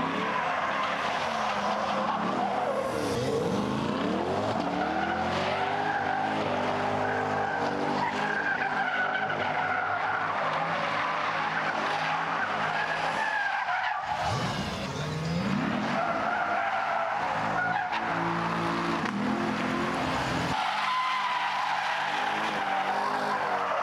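Corvette C8's V8 engine revving up and down through a drift while its rear tyres squeal continuously. About fourteen seconds in, the engine briefly drops off, then revs back up as the slide continues.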